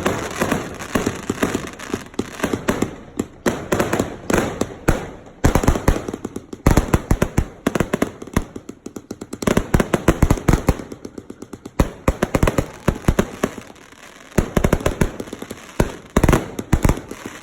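Multi-shot consumer firework cakes firing: rapid volleys of sharp shots, many a second, with brief lulls between bursts.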